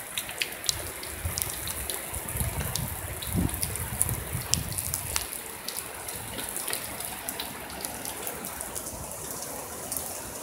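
Heavy rain falling in a steady hiss, with nearby drops and drips hitting hard surfaces as scattered sharp ticks. A low rumble runs under it through the first half.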